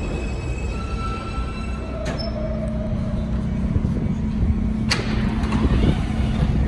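R160A subway train with Alstom propulsion slowing to a stop: its electric whine steps down in pitch twice as it brakes, then settles into a steady hum as it stands. There is a sharp click about five seconds in.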